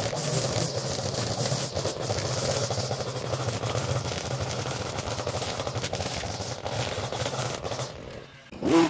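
Small petrol engine of lawn-care equipment running steadily. Near the end it eases off, then revs up quickly with a rising pitch.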